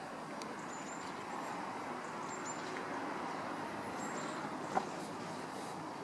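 Steady outdoor traffic hum with short high bird chirps every second or so, and a single sharp click about five seconds in.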